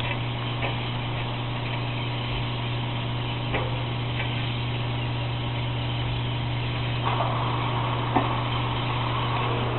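High-voltage substation humming: a steady low electrical drone with a hiss over it and a few faint clicks.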